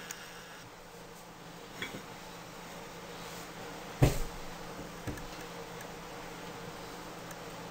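Kitchenware knocking against a glass mixing bowl: one sharp knock about four seconds in, with a couple of lighter taps before and after, over a faint steady hiss.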